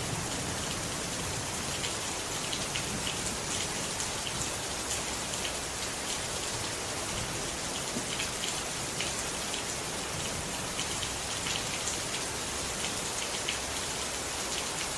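Steady rain falling, an even hiss with scattered distinct drop ticks.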